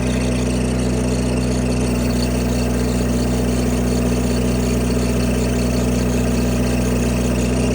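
Engine idling steadily and evenly, running well after a repair with new relays and a fuel pump.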